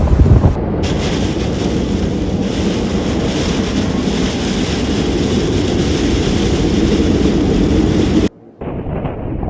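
Flash-flood water rushing steadily, with wind buffeting the microphone at the start. Just past eight seconds in it cuts off suddenly, and a duller recording of wind and water follows.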